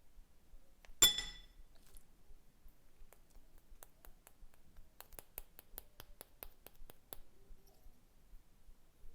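A single sharp clink of a hard object that rings briefly, about a second in, followed from about three seconds in by a run of light, quick clicks, up to about four a second, which stop a little after seven seconds.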